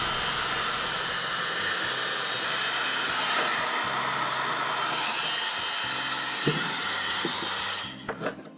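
Wagner electric heat gun blowing steadily, shrinking glue-lined heat shrink tubing onto a battery cable lug. The blowing stops near the end, followed by a couple of light clicks.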